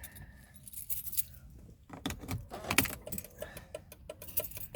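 A bunch of car keys jangling and clinking. The sound is faint at first, then busy with irregular metallic clicks from about two seconds in.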